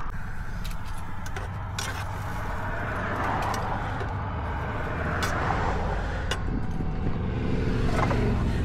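A car's steady engine and road rumble, with a few light clicks and rattles.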